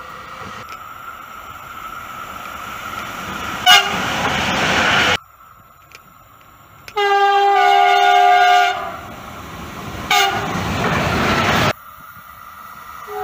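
Train horn and passing trains, cut together from several recordings. Rail noise from a passing train builds and cuts off suddenly, then a loud horn blast of one chord sounds for under two seconds and runs into more passing-train noise with a sharp clack, which also breaks off abruptly.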